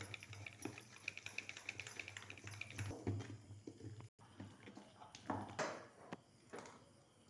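Wooden spoon beating flour into a thick batter in an aluminium pot, a quick run of light taps and scrapes over a low hum. After a break about four seconds in, a few louder scrapes as a wooden spatula stirs the mixture in the pot.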